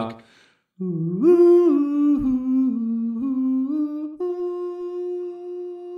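A man's voice singing a wordless, unaccompanied tune, closing a parody song. The pitch rises and falls over several notes, then settles on a long, higher held note that drops away at the end.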